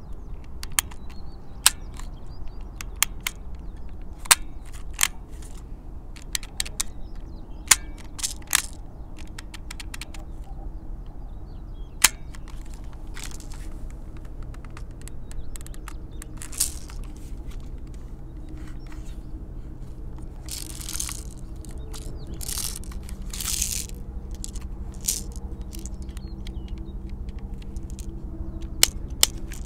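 Toystar Colt M1911A1 toy airsoft pistol being worked by hand: a string of sharp mechanical clicks and clacks from its hammer and action at irregular intervals, with a few longer scraping sounds about two-thirds of the way through.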